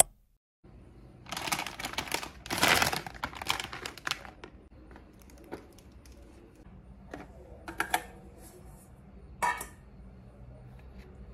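Rustling and clatter of food packages and kitchenware being handled, then a few separate light clinks, a couple of them briefly ringing, over a low steady hum.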